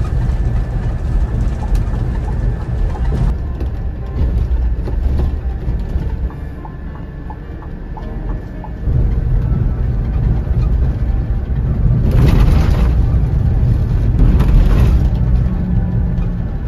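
Scania K400IB bus running at road speed: a steady low engine and road rumble that softens around seven seconds in and grows louder from about nine seconds. Two short hissing rushes of noise come near the end.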